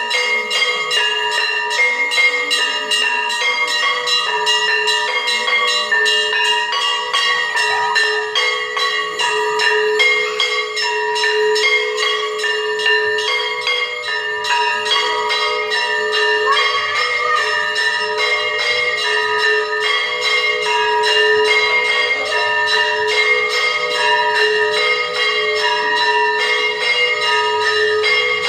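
Temple bells ringing continuously for the aarti, several bells struck rapidly so their ringing tones overlap.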